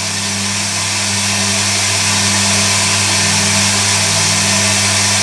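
Hoover Electronic A3172 washing machine filling with water for its final rinse while the drum tumbles: a steady hum under the hiss of water rushing in, growing a little louder over the first two seconds.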